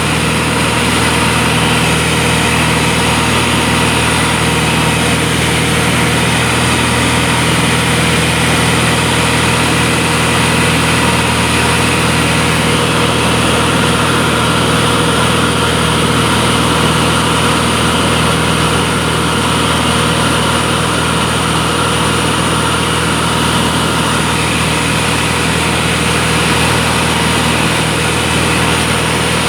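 Aircraft engine drone heard inside the cabin in flight: a loud, unchanging hum of several steady low tones over a constant rushing noise.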